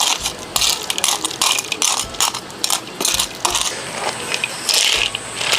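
Rapid, irregular clicking and crackling from a pot of river snails simmering over a wood fire.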